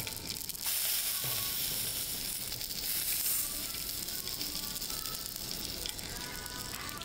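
Steak sizzling on a hot iron serving plate: a steady hiss that grows louder about half a second in.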